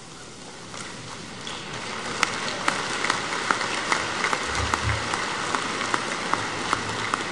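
Audience applauding: the clapping swells over the first two or three seconds, then holds steady.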